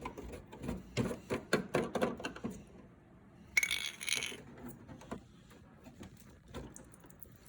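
Hands working the pump assembly of a dehumidifier, loosening a knob and taking a part off: a run of small clicks and knocks, then one sharp ringing clink about three and a half seconds in.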